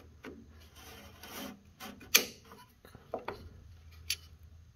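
Plastic distributor cap of a VW Beetle being seated by hand on the distributor, rubbing as it goes on, then several sharp clicks as the cap and its metal spring clamps snap into place. The loudest click comes about two seconds in.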